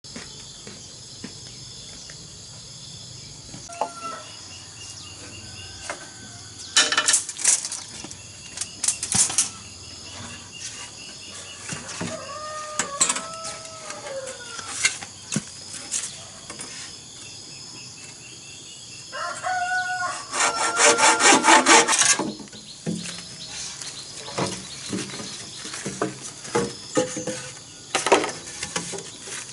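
A hand saw cutting through green bamboo in loud runs of quick strokes, with a rooster crowing in the middle. Insects chirp steadily throughout.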